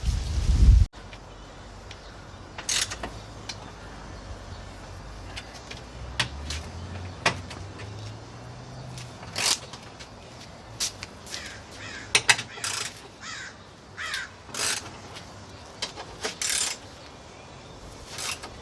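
Scattered short taps and clinks of hand tools and metal parts being handled, with a bird cawing several times in the middle and later part. A low rumble in the first second cuts off abruptly.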